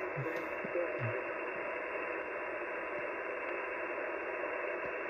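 Steady hiss and static from an Icom HF transceiver's speaker as the main dial is tuned across a quiet band with no stations heard, the sound cut off above the narrow single-sideband passband. Two soft low thumps come in the first second or so.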